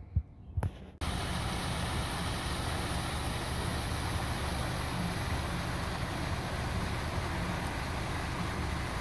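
Steady rushing noise of rainwater running into a street storm drain, with wind buffeting the microphone as a low rumble. It begins abruptly about a second in; before that there are only a few faint thumps.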